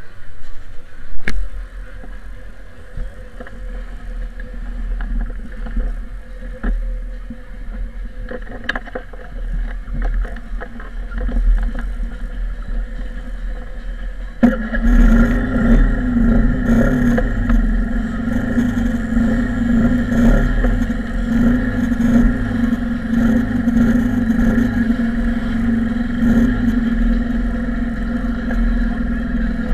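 A motorcycle engine starts suddenly about halfway through and then runs steadily with an even hum. Before that there is only a low rumble and a few knocks.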